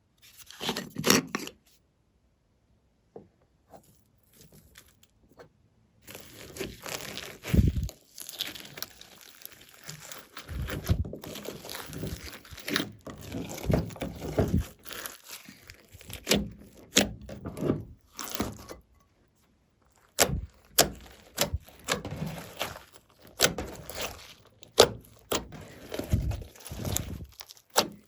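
Glossy slime being squished, pressed and stretched by hand: a short burst of sticky clicks and crackles, a few seconds of near quiet, then a long irregular run of crackling clicks and soft thumps.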